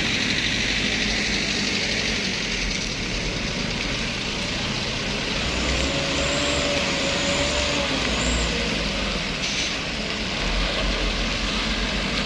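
A heavy coal truck's diesel engine running steadily with a low rumble and a steady hiss over it. A faint wavering whine comes in about halfway through.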